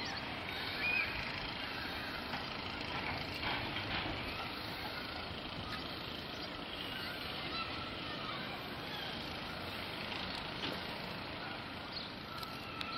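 Long Island Rail Road C3 bilevel passenger cars rolling slowly past: a steady rumble of wheels on rail, with a few clicks a few seconds in.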